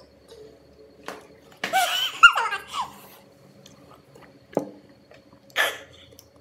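A burst of laughter lasting about a second, followed by a single knock of a fork against a plate and a short breathy sound near the end, over a faint steady hum.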